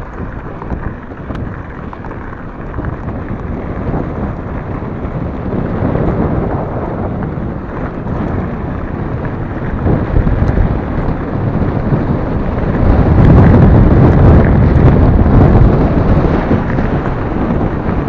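Wind buffeting the microphone of a handlebar-mounted camera, mixed with tyre rumble on loose gravel, as an e-mountain bike rides fast. It builds as the bike picks up speed and is loudest a little past two-thirds of the way through.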